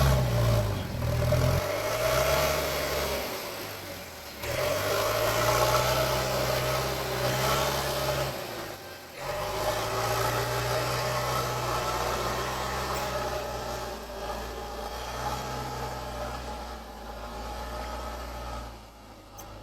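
JCB 3DX backhoe loader's diesel engine working, its pitch and load stepping up and down as it levels the road surface, with brief dips twice. It fades out near the end.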